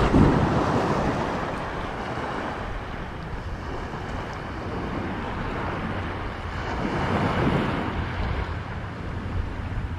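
Wind buffeting the microphone over small ocean waves washing in shallow water, swelling near the start and again about seven seconds in.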